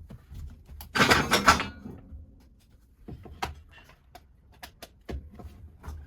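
Handling clatter: a dense burst of knocks and clicks about a second in, then a few scattered single clicks and knocks.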